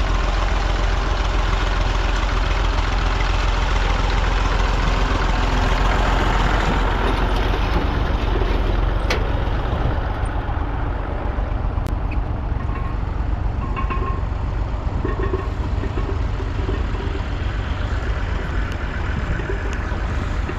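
1962 Massey Ferguson 35X's three-cylinder diesel engine running steadily, a little quieter from about halfway.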